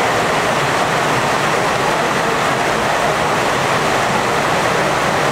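Heavy rain pouring down steadily onto a paved courtyard, a dense, even hiss of a downpour.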